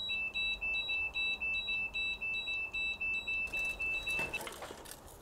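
Electronic alarm beeping in quick repeated pulses, about three a second, that stops a little over four seconds in.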